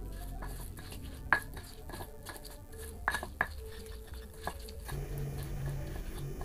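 Stone pestle (ulekan) grinding wet chilli sambal in a stone mortar (cobek): irregular scraping with sharp knocks and clicks of stone on stone, the sharpest about a second in and around three seconds in.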